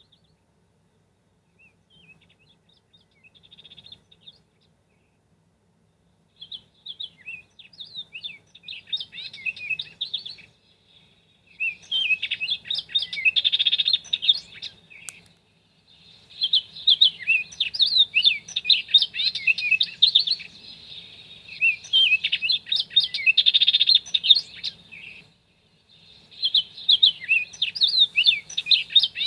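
Birdsong alarm-clock sound: many small birds chirping and twittering in repeated bouts of about four seconds with short gaps, starting faint and getting louder over the first few seconds.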